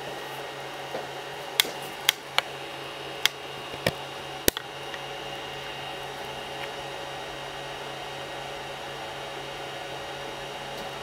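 Steady hum of a Creality CR-10 3D printer's cooling fans while its bed and nozzle heat up, with a handful of sharp clicks in the first few seconds.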